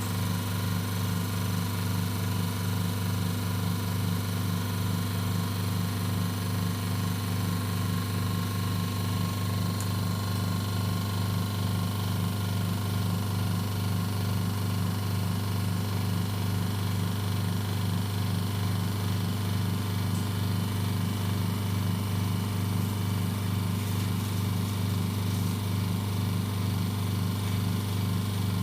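Vacuum pump of an OCA vacuum laminator running with a steady hum, drawing the vacuum on the laminating chamber during the vacuum-extraction stage before lamination.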